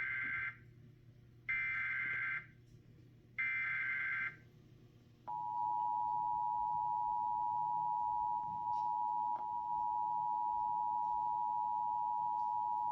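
Emergency Alert System SAME header: the end of one burst of buzzy data tones, then two more bursts of about a second each, spaced about a second apart. About five seconds in, the two-tone EAS attention signal starts and holds as a steady two-pitched tone, announcing an emergency alert.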